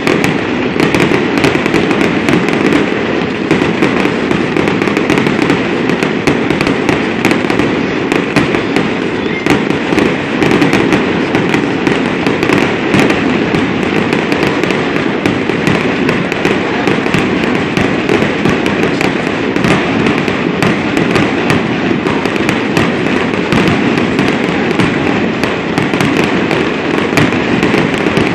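Fireworks display going off in a dense, continuous barrage: rapid crackles and pops with no let-up, from ground fountains and aerial shells.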